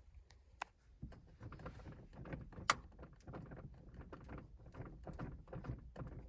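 Carbon shift knob being turned by hand onto the threaded shift lever: a run of small irregular clicks and rubbing, with a sharper click near the middle.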